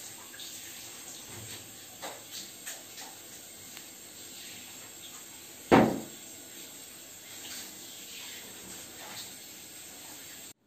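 Water spraying steadily from a handheld shower head onto a boxer dog's wet coat, with scattered small knocks. One loud thump comes about six seconds in.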